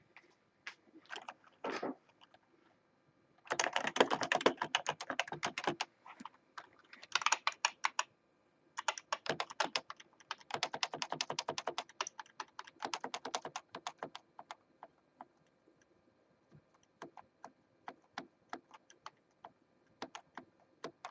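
Computer keyboard keys being pressed: several bursts of rapid key clatter, then slower, spaced-out single key clicks near the end.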